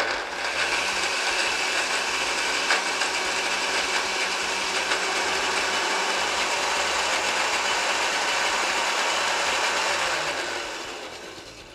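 Countertop blender running steadily, puréeing a tomato with no added water, then switched off and winding down near the end.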